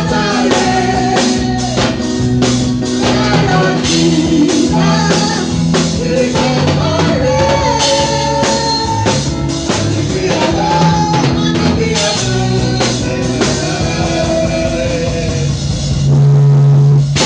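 Gospel praise music: singing over a drum kit and guitar with a steady beat. The singing stops about a second before the end, leaving a loud held low note.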